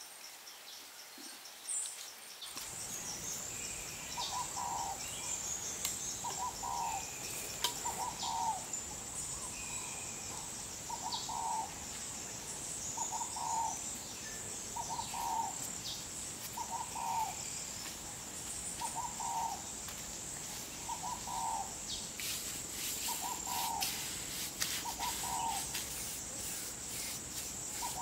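A bird calling over and over, one short low note every one and a half to two seconds, over a steady high-pitched insect drone. Near the end come a run of light clicks and rubbing.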